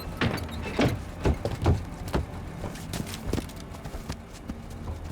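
Irregular knocks and thuds of soldiers' boots and gear as they pile out of a vehicle, loudest in the first two seconds, over the steady hum of the idling engine.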